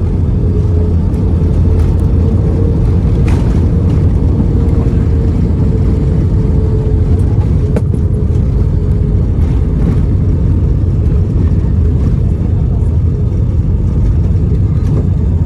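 Airbus A320 cabin noise: a loud, steady rumble of the jet engines and airflow, with a faint steady hum that fades out about halfway through.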